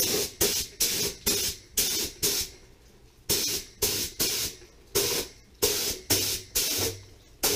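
Compressed-air gravity-feed paint spray gun spraying automotive paint in short trigger bursts, about two hissing bursts a second, with a brief pause near the middle.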